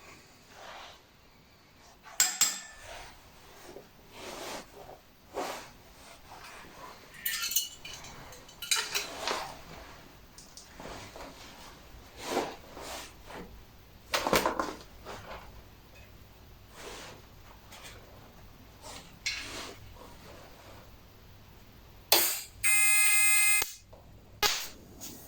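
Small steel parts and tools clinking and knocking against each other and a workbench as pieces are handled. Near the end there is a loud, steady buzzing tone lasting about a second.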